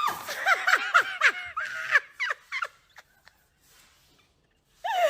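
A rapid run of shrill, high-pitched cries, each one rising and falling, about four a second and fading out after nearly three seconds. After a short pause, one more cry comes near the end.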